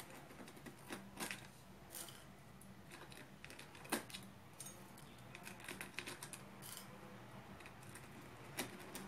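Faint, irregular clicks and crinkles of dried hibiscus flowers being pushed by fingers into the narrow neck of a plastic shampoo bottle, with one sharper click about four seconds in.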